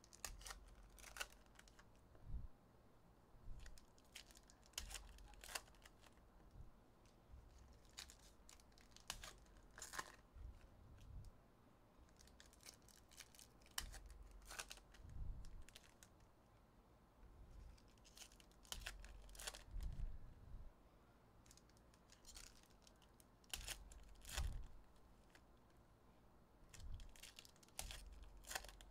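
Faint crinkling and tearing of foil trading-card pack wrappers as packs are opened and handled, with scattered short crackles and a few soft thumps.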